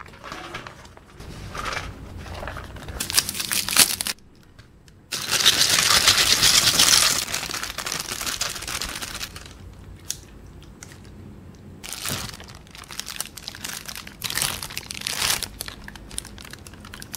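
Thin plastic takeaway bags crinkling and rustling as they are handled and squeezed, emptying rice and curry onto a metal tray. The loudest and most continuous crinkling is about five to nine seconds in.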